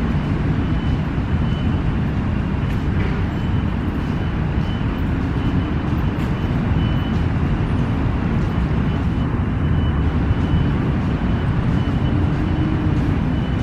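Steady low rumble of road traffic, continuous and even throughout.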